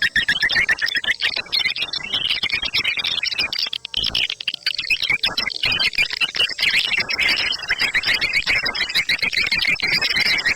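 Recorded swiftlet lure call, the 'ceklok' type of track used to draw swiftlets into a swiftlet farm building: a dense, unbroken chorus of rapid high chirps and clicks.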